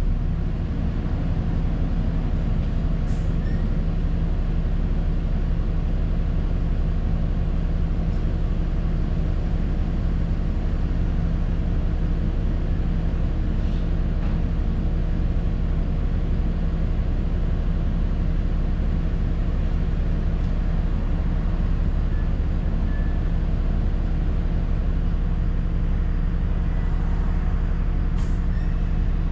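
ADL Enviro400 double-decker bus engine running with a steady, unchanging hum.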